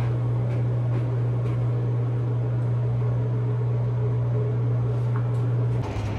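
Steady low electrical hum, even in level throughout, that cuts off suddenly near the end and gives way to outdoor street noise.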